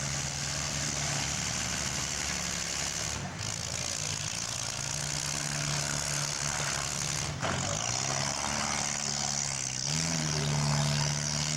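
Small-car engines running in a mini-car demolition derby, one engine revving up about ten seconds in.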